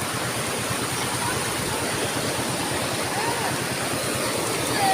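Rushing river water and a waterfall, a steady even rush. Two faint short chirps sound over it, one about three seconds in and one near the end.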